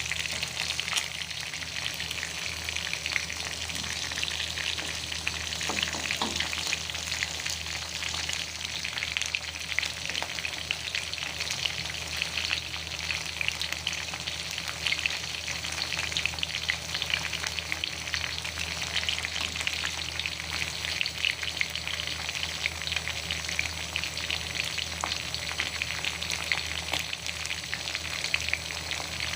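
Food frying in hot oil in a pan: a steady sizzle with continuous small crackles.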